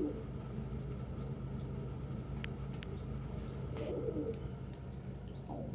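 Domestic pigeons cooing: a low coo at the start and another about four seconds in, with faint, short, high chirps scattered throughout and two sharp clicks midway.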